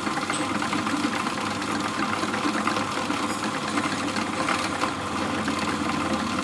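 Pillar drill press running steadily as its bit bores into a wooden handle held in a metal sleeve.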